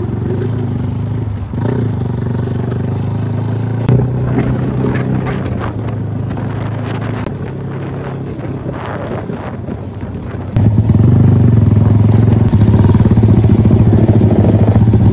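Small underbone motorcycle's engine running while riding, heard from the rider's seat. About ten and a half seconds in, it suddenly turns much louder and stays steady.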